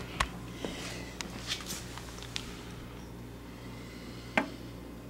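Quiet room tone with a steady low hum, broken by a scatter of small sharp clicks and knocks from handling in the first couple of seconds and one louder click about four and a half seconds in.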